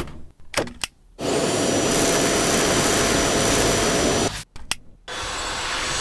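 Dyson V8 cordless stick vacuum running: a steady rush of air with a thin high whine. It cuts out with a few clicks in the first second and again after about four seconds, then runs on a little quieter.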